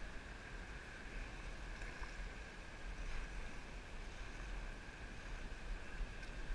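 Wind buffeting the microphone and water lapping against a kayak's hull, with a faint steady high tone underneath.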